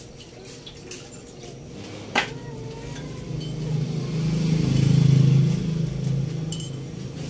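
A pot of pork broth boiling under a glass lid. There is a sharp clink about two seconds in, then a low bubbling rumble that swells in the middle and fades again.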